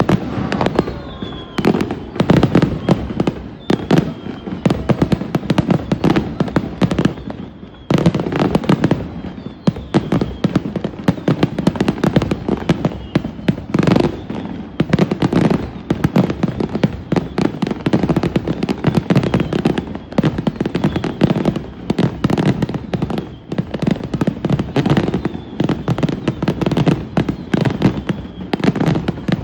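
Aerial fireworks bursting in a loud, rapid barrage of bangs and crackles, with a brief lull about eight seconds in.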